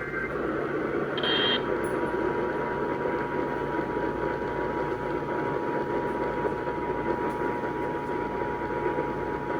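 Radio reception static, a steady hiss, with a faint steady tone coming in about a second in and holding.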